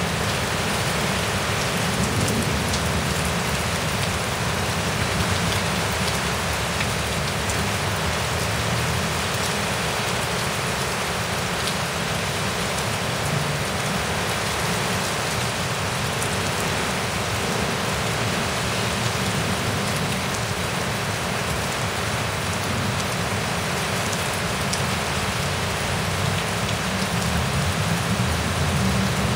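Heavy rain pouring steadily: a torrential thunderstorm downpour hitting the ground and nearby surfaces at a constant, even level.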